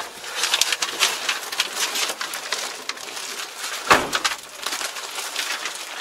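Protective plastic film and paper in a new tractor's cab crackling and rustling with movement, in dense irregular crackles, with a single thump about four seconds in.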